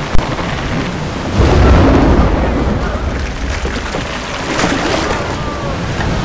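Storm at sea: a sharp crack just after the start, then a loud low rumble of thunder about a second and a half in that slowly dies away, over steady rain.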